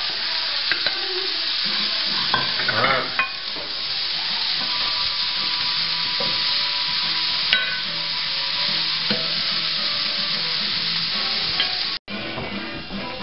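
Ground turkey, sweet potato and minced garlic sizzling in oil in a frying pan, with a spoon scraping and clicking against the pan as it is stirred. The sizzle is steady and cuts off suddenly near the end.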